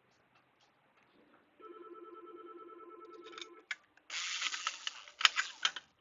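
A pulsing electronic ringing tone for about two seconds, starting after a second and a half of near silence, then a couple of seconds of rustling noise with sharp clicks.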